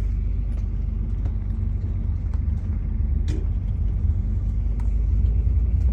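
Tour bus running, a steady low rumble heard from inside the cabin, with a couple of faint clicks.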